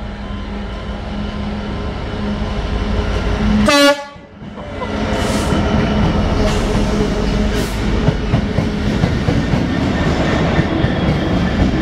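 Class 66 diesel locomotives, with EMD two-stroke V12 engines, coupled together and passing close by at speed. The engine sound builds as they approach, with a short horn blast about four seconds in. A loud rumble of engines and wheels follows, with wheel clicks over the rail joints about once a second.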